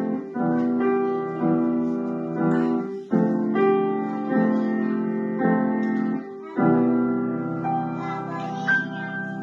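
Grand piano played slowly, full chords struck about once a second and left to ring. After a short break just past the middle comes a last chord that rings out under a few softer high notes.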